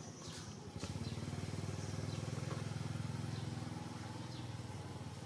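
An engine running with a steady low pulsing, growing louder about a second in.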